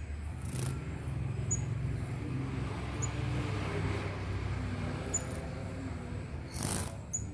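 A young sunbird gives short, high cheeps about every one and a half to two seconds over a low, steady rumble like a running motor or traffic. Two brief hissing bursts come, one about half a second in and one near the end.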